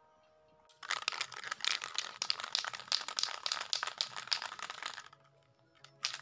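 Aerosol spray-paint can being shaken, its mixing ball rattling fast inside, starting about a second in and stopping near the end.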